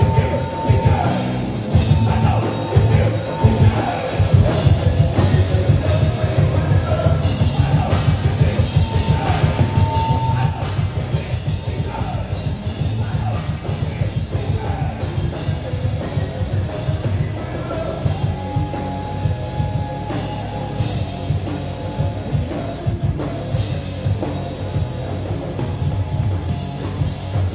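A hard rock band playing live on amplified instruments, with a drum kit keeping a steady, driving beat and a man singing into the microphone.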